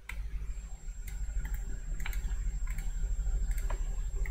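Scattered computer keyboard and mouse clicks, about eight sharp separate clicks, over a low steady hum from the recording setup.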